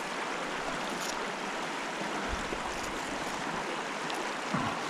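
Shallow mountain stream running over rocks and stones: a steady rush of flowing water.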